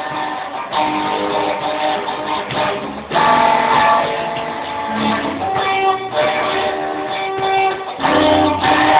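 Guitar strumming chords, with fresh strummed chords about a second in, about three seconds in, and near the end.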